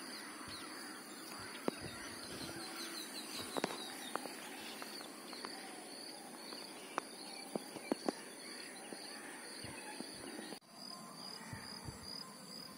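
A small bird chirping, repeating a short high note over and over, faint against outdoor background hiss, with a few soft clicks.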